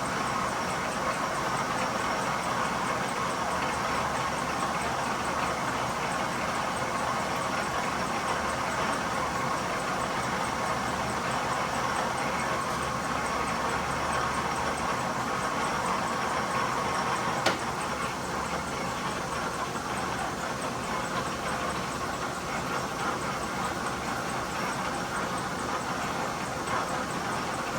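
1943 South Bend lathe running steadily while cutting a deep internal thread. A single sharp click comes about seventeen seconds in, after which it runs slightly quieter.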